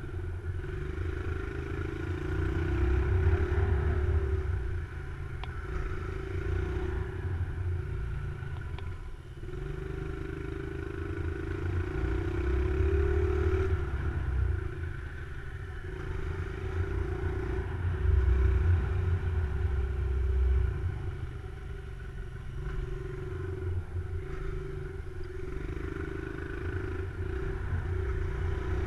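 Small motorcycle's engine revving up and easing off again and again as it is ridden through tight corners, its pitch rising under throttle and dropping back between.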